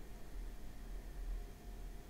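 Faint room tone: a steady low hum and hiss with no distinct event.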